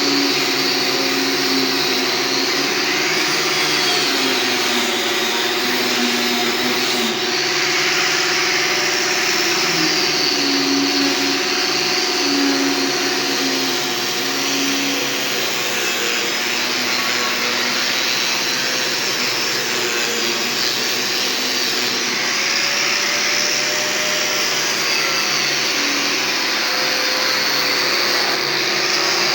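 Electric power tool running continuously, its whine wavering slightly as the load changes.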